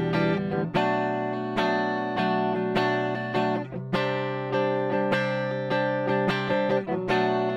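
Schecter C1 Custom electric guitar played on its neck pickup with a clean tone, strumming chords and letting each one ring, with a new chord about every second.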